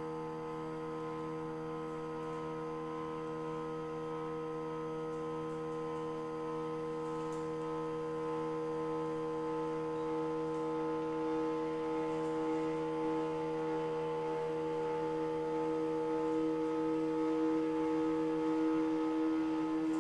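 CNC mill's Y-axis drive traversing at a constant 20 inches per minute, giving a steady hum of several pitches at once that grows slightly louder toward the end.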